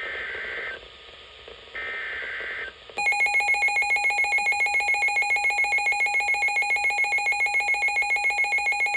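Emergency Alert System SAME header data bursts from NOAA Weather Radio: two harsh digital chirping bursts about a second long, a second apart. Then, about three seconds in, the receiver's electronic alarm starts: a loud rapid pulsing beep that signals an incoming severe thunderstorm warning.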